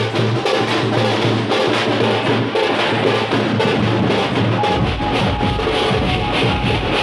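Procession drums beaten in a fast, loud, driving rhythm, with a deep bass beat coming back in about five seconds in.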